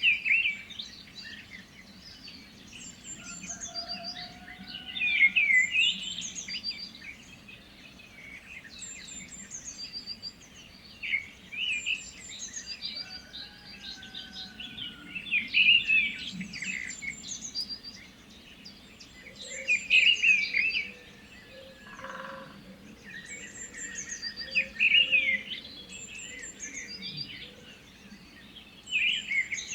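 Several wild songbirds singing, with a phrase of song every few seconds over a faint bed of outdoor ambience, and a few lower, quieter calls in between.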